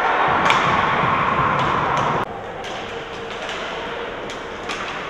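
Ice hockey rink sound: sharp clacks of sticks and puck on the ice and boards over steady arena noise. A loud rush of noise fills the first two seconds and cuts off abruptly.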